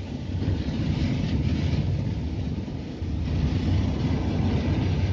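Steady low rumble of a Fiat's engine and tyre noise heard inside the cabin while driving at highway speed.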